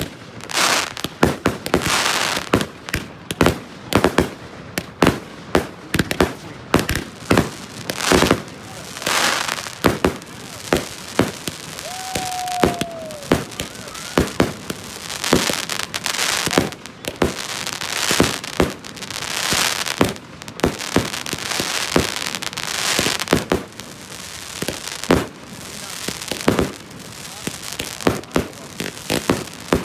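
Consumer fireworks going off in a rapid, unbroken barrage: sharp bangs of aerial bursts, several a second at times, with hissing crackle between them.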